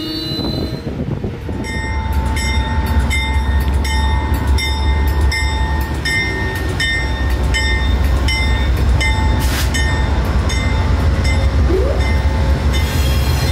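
Amtrak Genesis diesel locomotive pulling into the station with its bell ringing about twice a second over the low rumble of the engine. The bell stops near the end.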